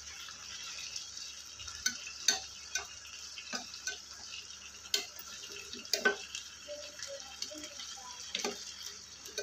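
Mutton pieces frying in oil in a coated frying pan on a low flame, with a steady sizzle. Metal tongs click irregularly against the pan as the pieces are turned over.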